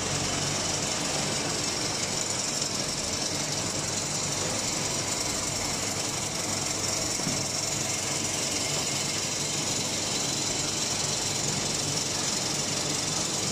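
Metal-swarf briquetting line running: a steady, dense rattle of steel chips moving over a vibrating feeder chute, over continuous machinery hum.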